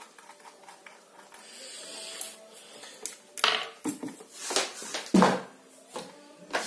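Handling noise from a motherboard being lifted and moved on a desk: a run of short knocks, clatter and rustling starting about three seconds in, after a quiet start.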